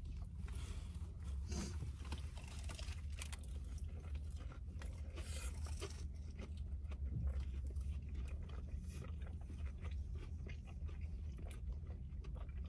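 A person biting into and chewing a crunchy, crumb-coated Korean fried cheese stick, with many small crunching clicks throughout. A steady low hum runs underneath.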